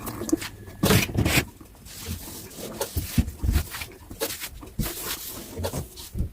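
Dishes and utensils handled at a kitchen sink once the tap is off: scattered light knocks and clatters, with a brief noisy rush about a second in.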